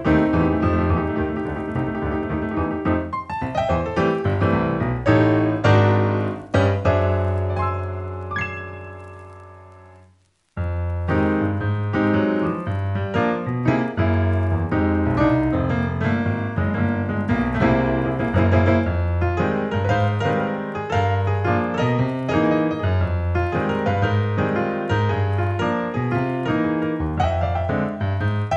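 Instrumental film-score music led by piano. A held chord fades away to a brief silence about ten seconds in, then the playing starts again with a steady low bass line under quick upper notes.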